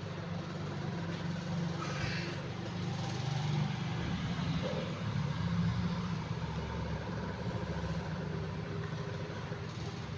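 A steady, low engine-like hum, as of a motor idling, with a couple of brief faint rustles over it.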